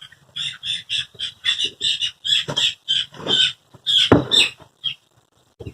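Cornish Cross chicks peeping: a rapid string of short, high chirps, some overlapping, with a louder rustle about four seconds in.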